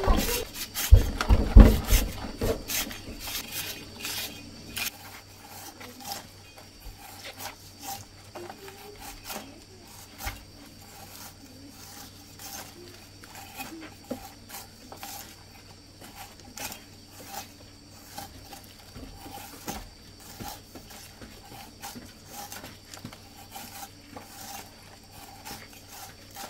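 A knife peeling a pineapple: many short scraping and cutting strokes through the tough rind, with a few louder knocks in the first couple of seconds.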